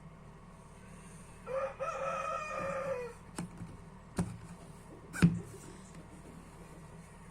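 A rooster crowing once, one long call of about a second and a half, followed by three sharp clicks or knocks, the last one the loudest.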